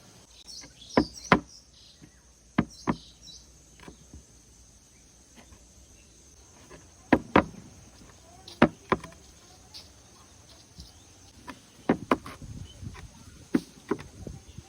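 Knife cutting into packed coloured sand: about ten sharp, crunchy knocks, mostly in close pairs.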